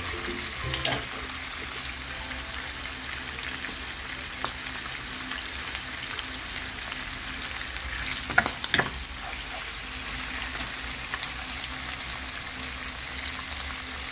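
Boiled pork hocks, onions and garlic sizzling steadily in oil in a pan as they are sautéed. A wooden spatula stirs them, knocking and scraping against the pan a few times, loudest around eight seconds in.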